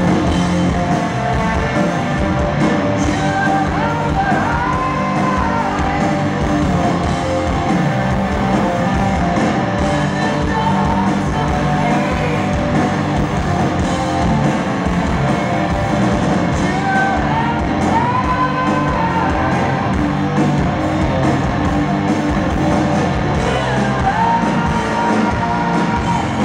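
Rock band playing live in a large hall, heard from within the audience: distorted electric guitars, bass and drums with a male lead voice singing long, bending notes.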